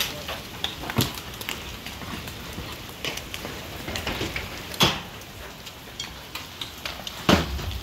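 Large hailstones falling and striking the wet ground and nearby surfaces: a steady patter with scattered sharper knocks, the loudest about a second in, near five seconds and again near the end.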